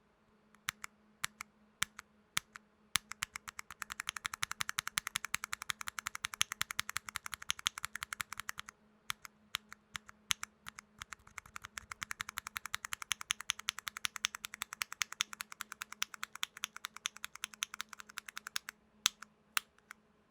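Typing sound test on a mechanical keyboard with switches lubed with shaving cream: scattered single keystrokes at first, then two long runs of fast typing with a short pause between them, ending with a few separate presses.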